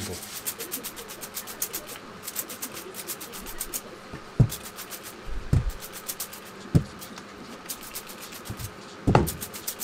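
Trigger spray bottle squirting water in quick, short hisses, dampening an end-grain wooden cutting board, with four dull thumps as the board is handled, the loudest near the end.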